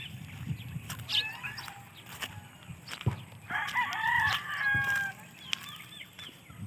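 Rooster crowing once about halfway through, a long call of about a second and a half, after a shorter fowl call about a second in.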